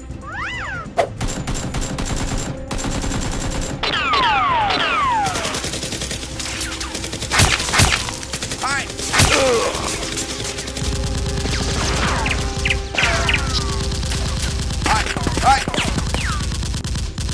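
Rapid gunfire sound effects dubbed over a Nerf-blaster shootout: sharp single shots and fast machine-gun-like bursts, with several falling whistle-like sweeps.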